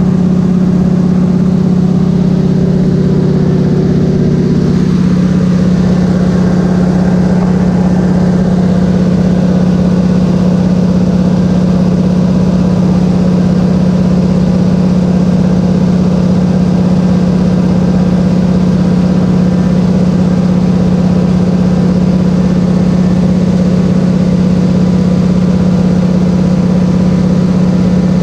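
Small single-engine floatplane's piston engine and propeller running steadily in cruise flight, a loud constant drone. The tone shifts slightly about five seconds in.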